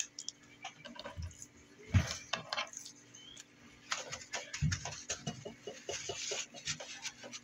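Paper towel being dabbed and pressed onto largemouth bass fillets on a wooden cutting board: irregular soft taps and paper rustling, with a louder knock about two seconds in and a quick run of pats in the second half.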